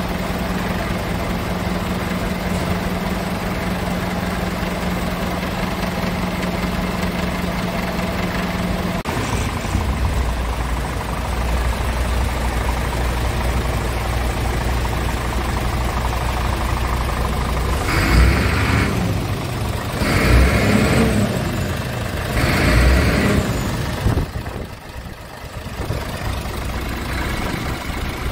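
Scania R tractor unit's engine idling steadily, its hum shifting lower about a third of the way in. Three short, louder bursts of noise come in the second half.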